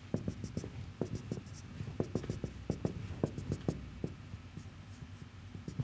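Marker pen on a whiteboard drawing small circles and dashes one after another: a run of quick, light taps and short strokes, several a second.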